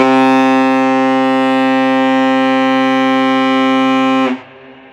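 Ship's horn of the departing training ship Kaiyu Maru sounding one long, steady blast that starts suddenly and cuts off after about four seconds: a farewell signal on leaving port.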